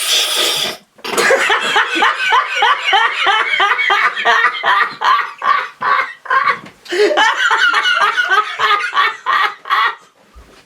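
A loud, hissing slurp of air and drink sucked hard through the opening of a soda can, ending under a second in, followed by hearty laughter in quick repeated 'ha's, about five a second, that fills most of the rest, with a short break about six and a half seconds in.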